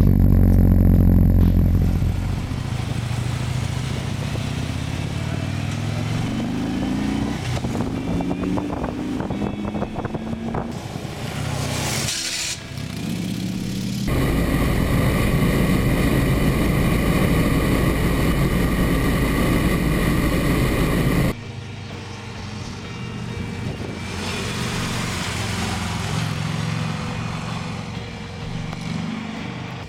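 Big V-twin touring motorcycles running on the road. The engines rise in pitch in steps as they accelerate and shift up through the gears, and there is a steady stretch at cruising speed. The sound cuts abruptly between shots.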